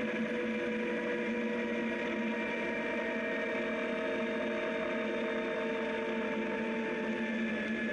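Zero DSR electric motorcycle at speed: a steady whine of several tones from the electric motor and drivetrain, their pitch drifting slowly with road speed, over a hiss of tyre and wind noise on the gravel road.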